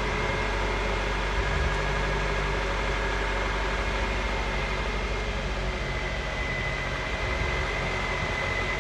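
2003 Honda CR-V's four-cylinder engine idling steadily, a constant hum with a thin whine over it, slightly stronger near the end.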